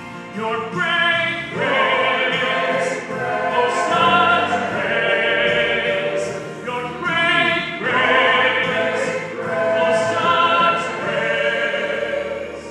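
Male soloist singing with a church choir, two long phrases that swell and hold, dropping away near the end.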